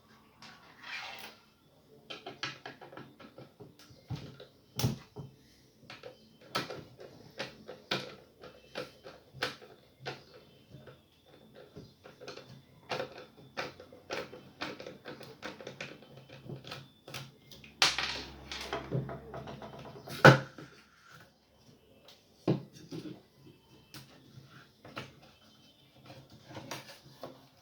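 Irregular clicks, taps and knocks of hands and tools working on a plastic subwoofer cabinet as it is taken apart, with a louder knock a little after two-thirds of the way through.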